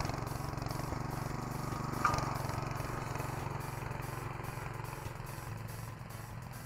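Huter 7 hp walk-behind tractor's single-cylinder petrol engine running as it pulls a sit-on cart through snow, growing fainter as it moves away. A brief sharp knock about two seconds in.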